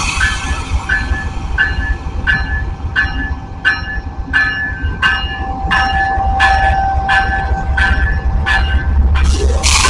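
Amtrak GE Genesis diesel locomotive standing at a station platform with its bell ringing steadily, about one and a half strikes a second, over the low rumble of the idling diesel and a thin steady whine. A burst of hiss comes near the end.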